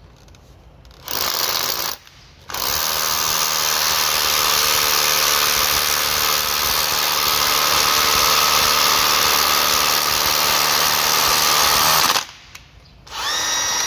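Makita DHR182 18V cordless rotary hammer drilling into a concrete block. A short first burst about a second in is followed by a steady run of about ten seconds. The drill stops, then briefly spins up again with a rising whine near the end.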